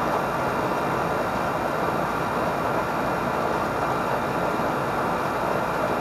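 Outdoor central air conditioner condensing unit running with a steady, unchanging noise.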